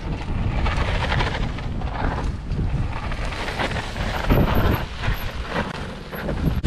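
Mountain bike tyres rolling and crunching over a dirt trail strewn with dry leaves as riders come down past the camera. A heavy low rumble of wind on the microphone runs underneath.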